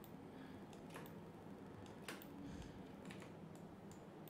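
A few faint, scattered clicks from a computer mouse and keyboard, about one a second, over quiet room tone.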